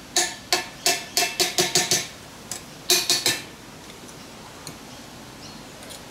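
Sharp metallic clinks and knocks, about a dozen in the first three and a half seconds, as freshly cast brass hammerheads on their runner are knocked and freed from the sand mould. After that, only faint handling sounds.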